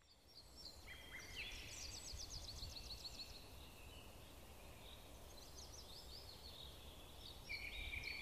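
Songbirds singing faintly in an outdoor ambience, fading in at the start: rapid high trills and short whistled phrases, over a low steady rumble.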